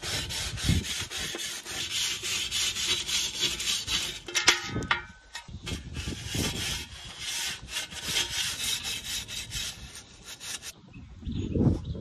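A brush scraping caked grease and ash off metal pellet-smoker parts in quick back-and-forth strokes, about four a second. The scraping pauses briefly about halfway, stops near the end, and a dull knock follows.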